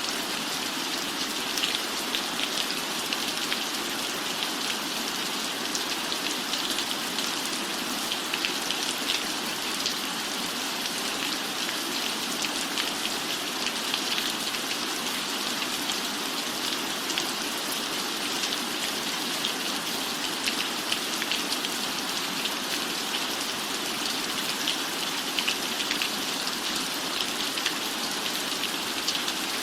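Steady rain falling, an even hiss dotted with many small drop ticks, unchanging throughout.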